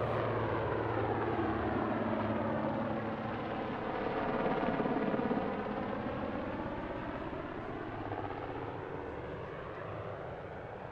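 Helicopter flying a display manoeuvre, its rotor and engine sound swelling to loudest about four to five seconds in and then slowly fading as it moves away.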